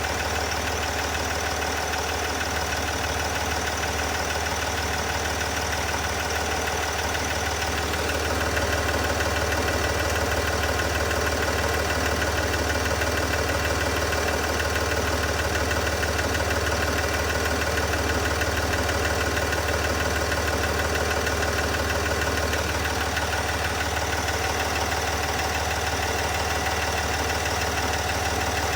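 3.0-litre SDV6 V6 diesel engine idling steadily with a rapid, regular ticking noise, getting slightly louder about eight seconds in.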